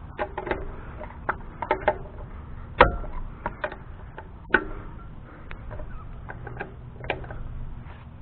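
Torque wrench at work on a camper wheel's lug nuts: a dozen or so sharp, irregular metallic clicks and knocks, the loudest about three seconds in.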